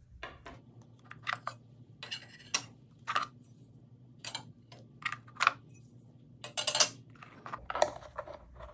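Steel dado chipper blades clinking and clattering against their plastic storage case and the saw's metal table top as they are lifted out and set down: a scattered series of sharp clicks and clanks, the loudest clatter about two thirds of the way through.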